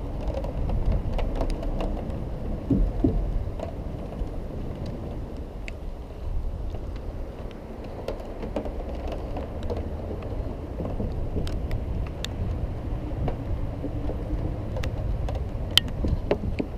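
Low rumble of riding on a Xiaomi M365 electric scooter, picked up by a camera mounted on it, with wind on the microphone and scattered sharp ticks.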